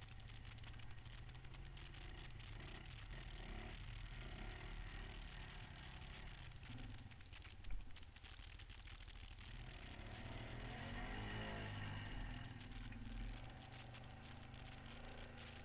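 Quad bike (ATV) engine running as a steady low rumble, with a single sharp knock about halfway through and the engine getting louder with a wavering note about two-thirds of the way in.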